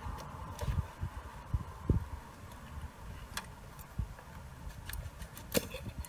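Scattered clicks and light knocks of hands working ignition stick coils and their plastic connectors off the spark plugs of a motorcycle engine, over a low rumble. The loudest click comes about five and a half seconds in.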